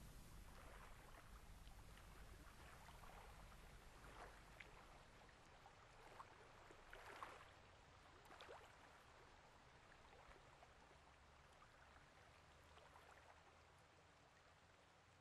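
Near silence: faint steady hiss with scattered small ticks and crackles, slowly getting quieter.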